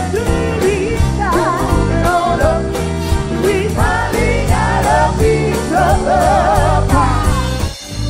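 Live soul band with drums, bass and guitar playing under singers, their voices sliding and wavering on held notes, several at once in the middle. Near the end the music briefly drops out and a different song starts: an edit to the next number.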